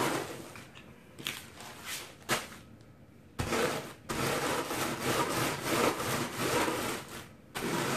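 Wooden rolling pin rolled back and forth over a sealed plastic bag of sour cream and onion potato chips, crushing them toward fine crumbs. Light strokes at first, then steady, heavier rolling from about halfway through.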